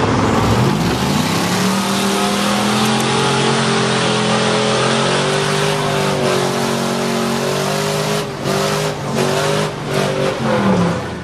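Mud truck engine revving up about a second in and held at high revs, then surging and dropping several times near the end as the pitch falls away.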